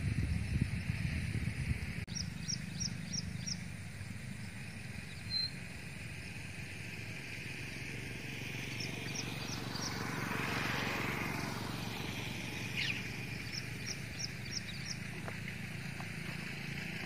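Outdoor pond-side ambience: a steady low rumble like wind on the microphone, with a bird giving three quick series of about five short high chirps and one falling call. A broad rushing sound swells and fades around the middle.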